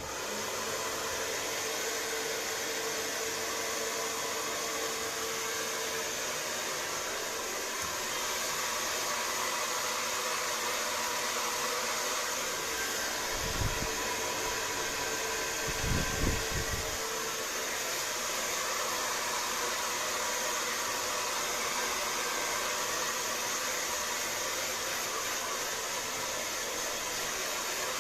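Handheld hair dryer switched on at the start and blowing steadily. There are two brief low thumps about halfway through.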